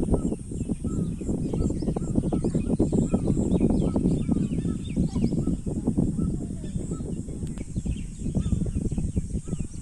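Small birds chirping and calling throughout, over a loud, rough low rumble of wind buffeting the microphone.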